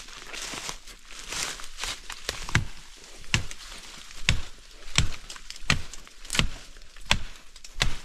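Machete chopping through forest undergrowth: a steady run of sharp chops, about three every two seconds, starting a couple of seconds in after some rustling of vegetation.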